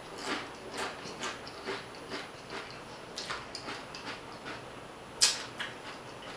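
Close-up eating sounds of a mouthful of loaded nachos being chewed, with wet lip smacks and fingers being licked and sucked clean: a run of short clicks a few times a second, and one louder smack about five seconds in.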